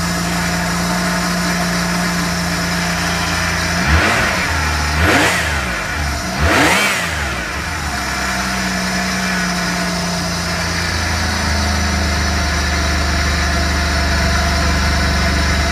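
Holden VN Commodore engine idling just after starting, blipped three times about four to seven seconds in, each a quick rise and fall in revs, then settling back to a steady idle. It is breathing through a freshly fitted pod air filter on a custom intake pipe.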